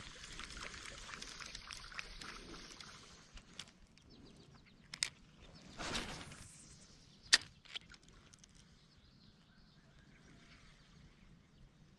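Fishing rod and reel being cast and retrieved from a kayak: a fine run of reel ticks at first, then a short whoosh of a cast about six seconds in, followed by a sharp click, the loudest sound, a little after seven seconds as the reel engages.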